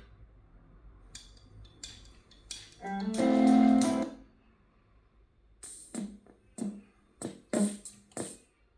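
Guitar music playing through a small water speaker, sparse here: one loud held chord about three seconds in, then a string of short single notes.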